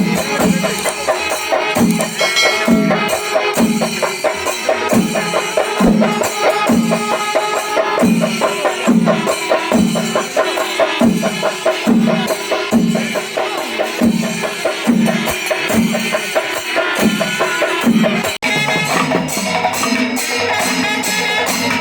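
Kerala festival percussion (melam): drums and cymbals, a steady low beat a little more than once a second under dense metallic clatter. About 18 seconds in it cuts off briefly and resumes with a different pattern.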